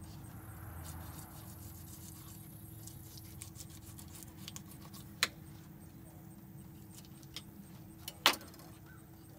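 Fillet knife clicking and tapping against the fish and the cleaning table as a bass is filleted, with a sharp knock about five seconds in and the loudest knock near the end, over a faint steady hum.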